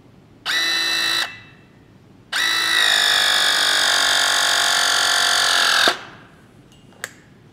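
Battery-powered press tool with a ring and actuator crimping a MegaPress fitting onto steel pipe: a short burst of motor whine, then about three and a half seconds of steady whine whose pitch sags slightly as the load builds, cutting off sharply when the press cycle ends. A single sharp click follows near the end.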